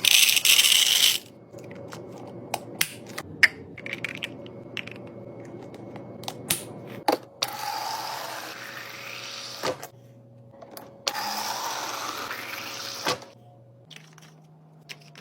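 Mini fridge running: a steady hum with scattered clicks and rattles, a loud hiss in the first second, and two longer whooshing, gurgling stretches in the middle. Near the end the hum changes to a lower steady tone.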